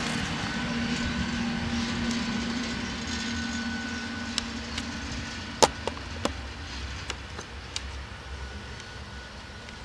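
Electric locomotive running light and moving away, its steady hum fading, with a string of sharp clicks from the wheels on the track, the loudest a little past halfway.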